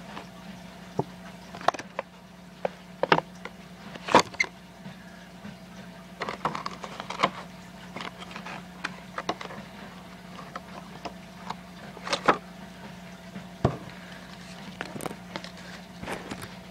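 Scattered clicks, taps and short rustles of a small kit's cardboard and plastic packaging being handled and opened, over a steady low hum.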